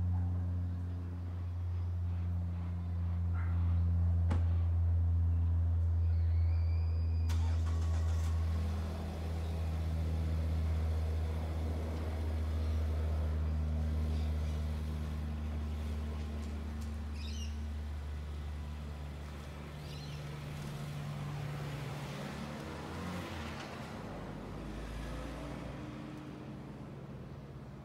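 Low, steady engine rumble with a few faint pitched tones above it, fading over the last several seconds; a bird chirps briefly a few times.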